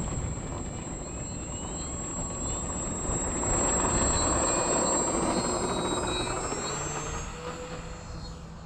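Sunnysky X2814 brushless electric motor and propeller of an RC model plane throttling up for takeoff: a whine rising in pitch, loudest around the middle, then fading as the plane climbs away.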